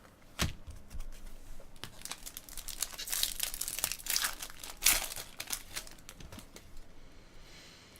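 Foil trading-card pack wrapper being torn open and crinkled, a dense crackle heaviest in the middle with a sharp snap about five seconds in.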